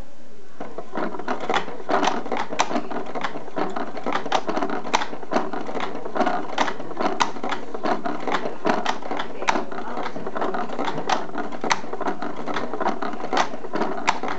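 Lego single-piston engine model running, its plastic piston, crankshaft, valves and camshaft clattering in a fast, uneven stream of clicks that starts about half a second in.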